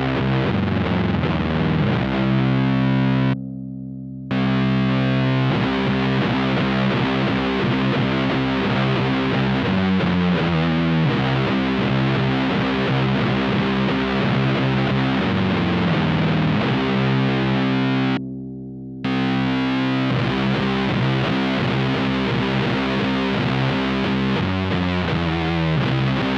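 Electric guitar through a one-knob fuzz pedal playing a slow doom-metal riff of heavily distorted, sustained low chords. The riff repeats, and twice the chord briefly drops in level and loses its top end.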